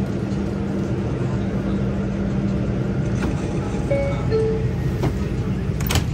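New York City subway train running at a steady pace, with a constant rumble and motor hum. Two brief high tones sound about four seconds in, and a single sharp click comes near the end.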